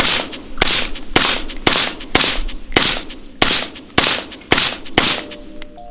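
Suppressed AR-style semi-automatic rifle fired steadily, about two shots a second, ten shots in all, each with a short tail. Music comes in near the end.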